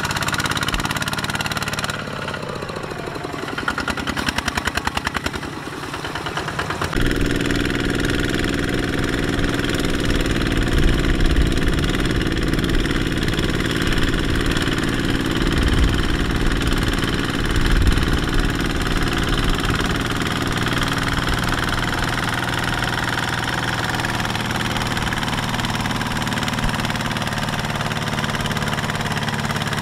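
Kubota RT155 walking tractor's single-cylinder diesel engine running under load, hauling a loaded trailer through mud. Its engine speed drops and climbs back up about two to six seconds in, then it runs steadily.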